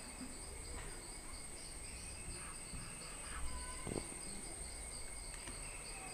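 Faint crickets chirping in a steady repeating pulse over a constant high insect drone, with a couple of faint taps about three and a half and four seconds in.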